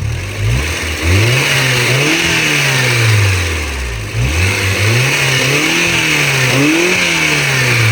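A 2001 Honda Prelude's four-cylinder engine, stationary, revved up and dropped back to idle several times, the pitch rising and falling in long swells. It is being revved to check for smoke from the tailpipe, which the mechanic takes as a sign of internal engine damage.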